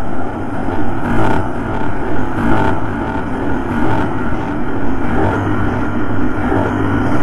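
Dark ambient drone: a dense, steady wash of rumbling noise with a low hum that grows stronger about five seconds in.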